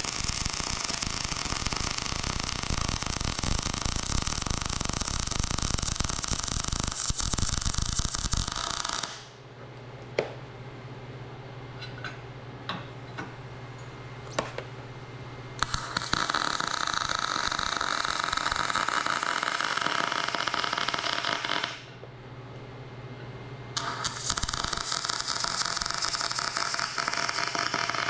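Electric arc welding on the plow's steel mount pockets, a loud steady crackling hiss of the arc. It runs in three welding passes: one stops about nine seconds in, the next starts around sixteen seconds and stops near twenty-two, and the last starts near twenty-four. In the pauses between them there is a low steady hum and a few light clicks.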